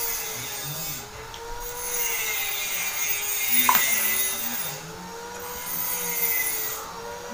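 Power tool from nearby house building work, running with a wavering whine and a hiss that drops out briefly every few seconds, with one sharp click midway.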